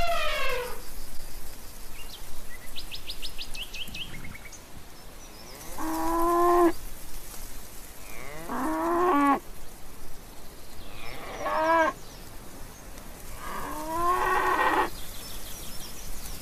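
Cattle mooing: four long calls about two to three seconds apart, each bending in pitch. About three seconds in, a quick run of high chirps.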